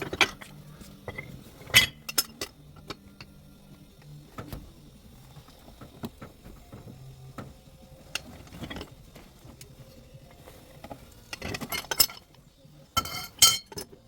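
Intermittent metallic clinks and taps from metal pipe and tools being handled, with two louder bursts of clatter near the end.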